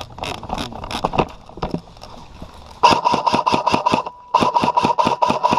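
Airsoft electric gun firing full-auto, two long bursts of about ten shots a second over the whine of its gearbox motor, with a short pause between them. Scattered single clicks and pops come before the first burst.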